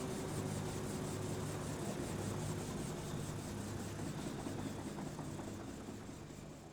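Helicopter running, with a steady rhythmic rotor beat over a constant engine hum, fading away over the last couple of seconds.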